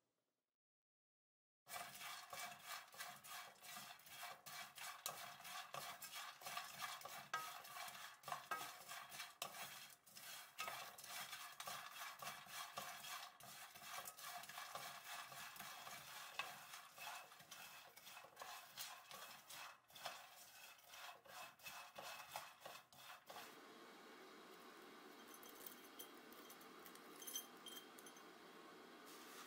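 Dried balloon flower root slices stirred and tossed with a wooden spatula in a dry pan as they roast: dense, crisp rustling and scraping clicks. About three quarters of the way through, this gives way to a steady faint hiss with a few light clinks.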